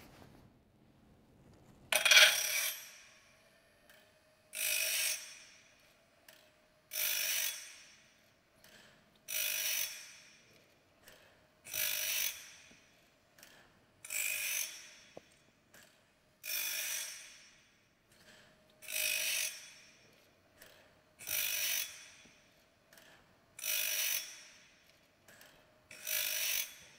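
Woodland Mills RS30 PRO bandsaw blade sharpener in high speed, grinding sawmill blade teeth with its CBN disc. A short grinding pass comes about every two and a half seconds as the blade advances one tooth at a time, eleven passes in all starting about two seconds in, the first the loudest.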